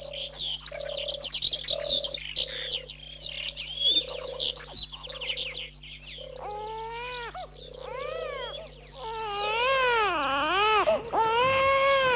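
Birds chirping, with a low call repeating about twice a second. About six seconds in, an infant starts crying in long rising-and-falling wails that get louder toward the end.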